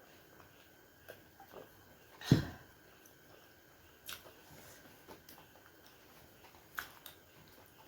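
Quiet chewing of momo dumplings, with a few small clicks and one loud thump a little over two seconds in.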